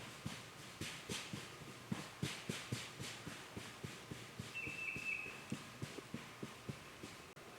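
A freshly shot wild turkey flopping on the forest floor, its wings beating and thumping the ground and dry leaves about three or four times a second. The beats are irregular and die away near the end. A short high bird call sounds about halfway through.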